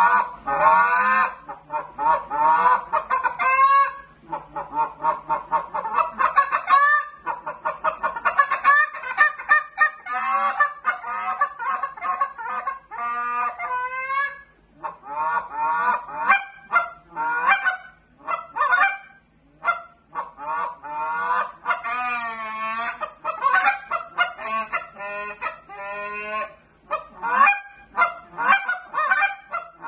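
GK Calls 'Solution' short-reed Canada goose call blown by hand in quick runs of short honks, broken by brief pauses every few seconds, with a longer wavering note a little past the middle.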